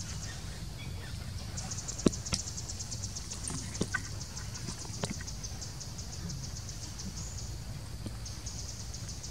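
Insects trilling in a high-pitched, rapid, even pulsing that drops out briefly about seven seconds in and then resumes, over a steady low rumble. A few sharp snaps cut through, the loudest about two seconds in and others near four and five seconds.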